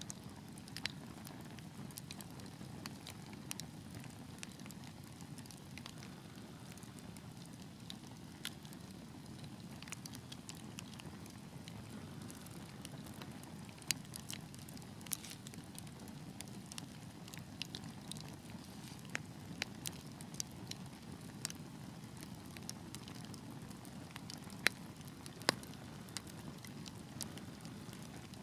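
Wood fire burning in a fireplace: a steady low rumble of flames with irregular sharp crackles and pops, a few louder pops near the end.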